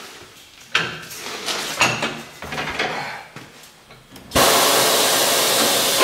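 A heavy skid steer tire knocks and scrapes against a tire changer as it is shoved into place. About four seconds in, a loud, steady hiss of compressed air starts: the tire changer's pneumatic bead breaker working against the tire.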